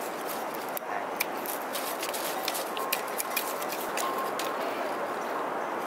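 Light, irregular clicks and taps of bamboo strips being worked into a basket by hand, over a steady outdoor hiss.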